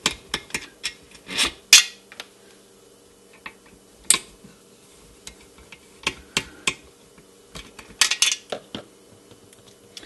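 Irregular metal clicks and clinks of a screwdriver working two small mounting screws loose on the sheet-aluminum back of a clock chime, with the Telechron motor assembly handled free of the clock face.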